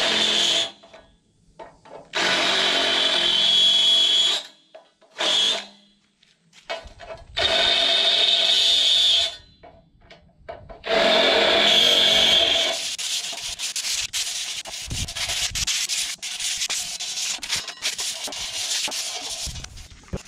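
DeWalt cordless drill with a countersink bit cutting into the pre-drilled holes of steel angle trim, in five runs of up to about two seconds each with a steady whine, separated by short pauses. For the last several seconds there is a quieter, uneven scraping with clicks.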